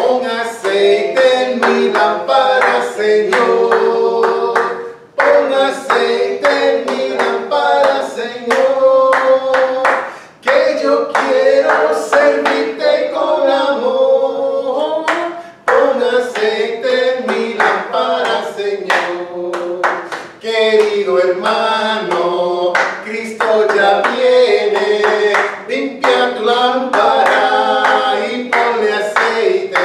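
Congregational singing of a church chorus, several voices led by a man at a microphone, with hands clapping along in time. The singing breaks briefly between lines about every five seconds.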